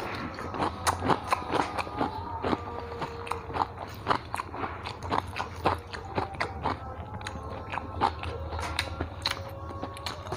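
Close-miked chewing of a man eating rice and small-fish curry by hand, with many quick, irregular wet mouth clicks.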